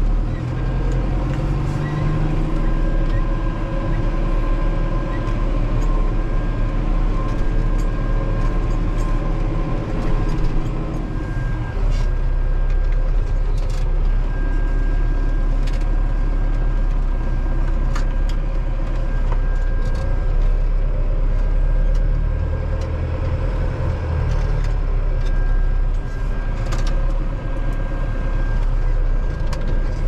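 Valtra N91 tractor's diesel engine running steadily under load while pulling a plough, heard from inside the cab; the engine note changes about twelve seconds in.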